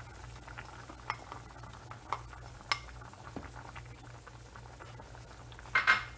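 Soup boiling in a metal pot, with a spatula knocking a few times against a bowl and the pot's rim as diced carrots are scraped in. A louder clatter of utensils comes near the end.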